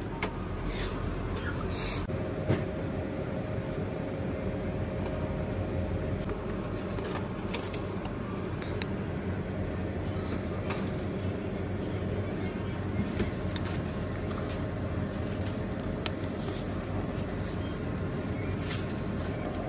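Self-serve convenience-store coffee machine running as it brews hot coffee into a paper cup: a steady mechanical hum that settles into a steady tone about two seconds in, with scattered light clicks.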